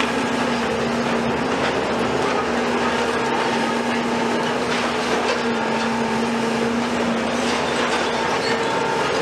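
Heavy demolition excavators' diesel engines and hydraulics running in a steady drone, with a held whining tone that steps in pitch a few times as the load changes, and a few faint knocks.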